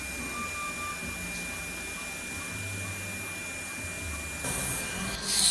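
Operating-room sound during irrigation of the nose in surgery: an even hiss with a steady high thin tone, then a loud hissing rush near the end, typical of surgical suction drawing off the irrigation fluid.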